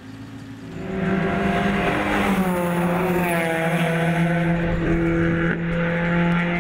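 Sports car engine running, coming in loud about a second in; its note dips in pitch and then holds steady.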